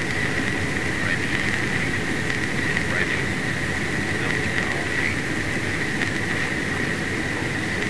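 Steady drone of a B-17 Flying Fortress's radial piston engines heard from inside the cockpit in level flight, a constant low rumble with a steady high hum on top.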